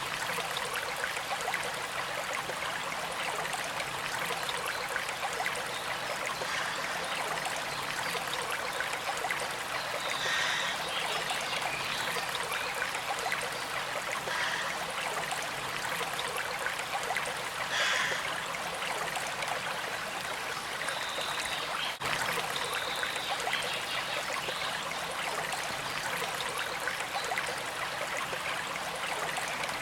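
A stream running steadily with trickling water. A few brief higher-pitched sounds stand out now and then.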